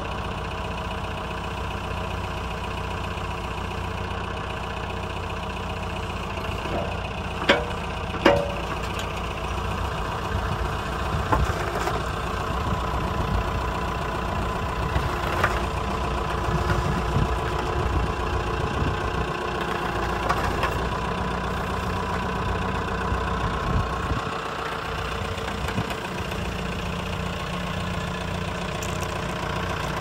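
JCB 210S backhoe loader's diesel engine running steadily while the backhoe is worked, with two sharp knocks about seven and eight seconds in. A steady whine joins the engine from about twelve seconds in.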